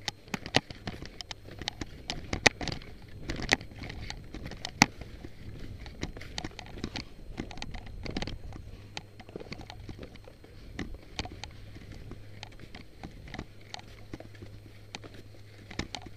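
Skis sliding and chattering over tracked, chopped-up snow: irregular scrapes and sharp clacks, the loudest in the first five seconds or so.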